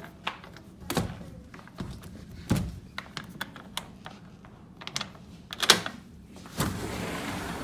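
Scattered clicks and knocks. Near the end a steady rush of outdoor noise starts and keeps on, as a sliding door to the lanai is opened.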